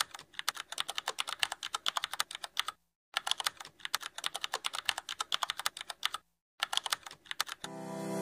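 Keyboard typing sound effect: rapid key clicks in runs, broken by two brief pauses. Music fades in near the end.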